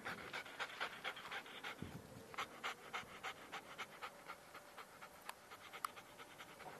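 German Shepherd dog panting in a quick, even rhythm of several pants a second.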